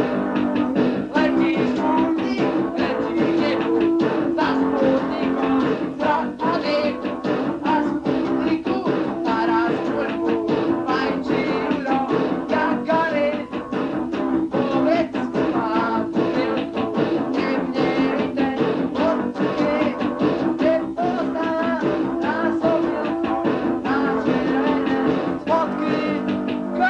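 Lo-fi punk rock with guitar chords over a steady drum beat and a wavering melody line on top, recorded on a dictaphone.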